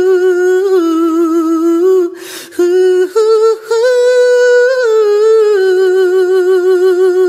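Soundtrack of a song: a single voice humming a wordless melody in long, wavering held notes, with a brief break about two seconds in.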